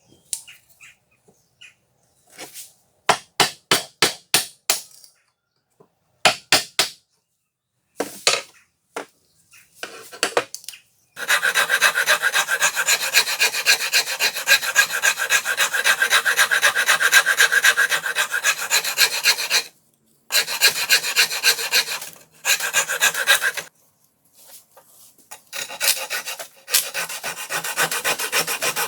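Hand abrasion on the screwdriver, by a file or by sandpaper. The first ten seconds hold a few groups of separate strokes. Then comes fast, continuous back-and-forth scraping for about nine seconds, which stops briefly a few times near the end.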